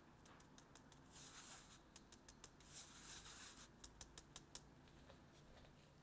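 Flour being sifted through a fine stainless steel mesh sieve into a bowl: a soft, hissing rustle of powder through the mesh in two stretches, with many light taps of fingers on the sieve, a quick run of sharper ones in the second half.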